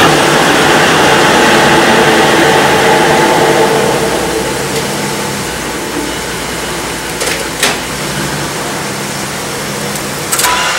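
1995 Dodge Ram 1500 rear differential growling as the raised rear wheels spin in gear with the engine running. The noise is loud at first and drops off about four to six seconds in as it slows, with a few clicks near the end. It is a sign of failing pinion bearings, which the mechanic thinks the most likely cause.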